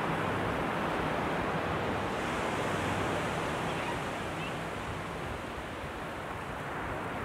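Ocean surf breaking on a beach: a steady rush of waves, easing slightly about five seconds in.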